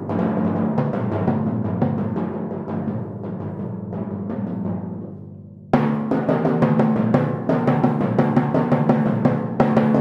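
Solo timpani, a set of four kettledrums played with mallets: a fast run of pitched strokes that dies away over a few seconds, then a sudden loud stroke a little before halfway opens another fast, loud passage.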